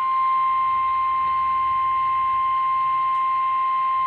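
Weather radio warning alarm tone: a single steady high-pitched tone of about 1050 Hz, sent before a severe weather warning is read out. It comes through a computer's speakers.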